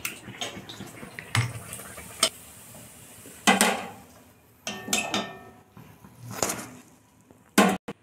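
Steel ladle and slotted spoon knocking and scraping against a batter bowl and an iron kadhai: a string of separate clinks and clanks about a second apart, one ringing briefly, the loudest near the end.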